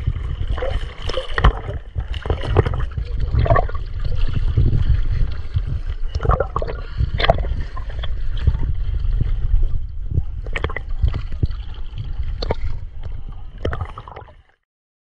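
Seawater sloshing and splashing around a camera held at the surface, with a continuous low rumble of water buffeting and many short sharp splashes. It cuts off suddenly near the end.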